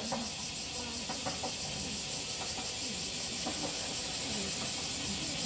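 A chorus of cicadas shrilling in steady pulses, about five a second. Under it, the diesel railcar's engine runs faintly as it approaches.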